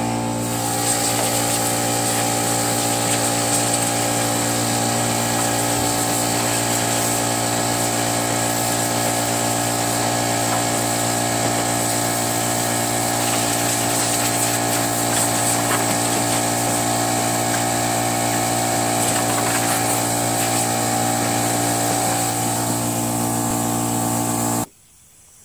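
Air blow gun on a coiled air hose blasting compressed air to clear sanding dust off a plastic mower hood: a steady hiss over a steady mechanical hum, cutting off suddenly near the end.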